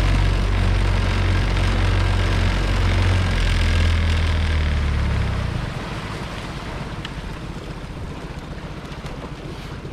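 Small fishing boat's motor running steadily under way, then throttled back a little past halfway, dropping to a quieter, lower run.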